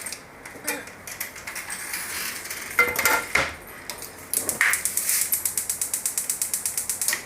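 A few separate knocks, then a fork beating eggs in a bowl: rapid, even clinking of metal on the bowl, about ten strokes a second, for the last three seconds or so.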